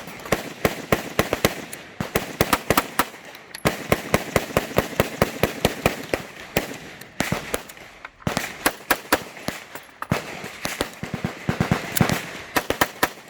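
Gunfire: many sharp shots in quick, irregular succession, several close together at a time, with short pauses between strings.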